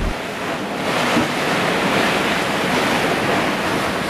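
Open sea: a steady rush of waves, swelling a little between one and three seconds in.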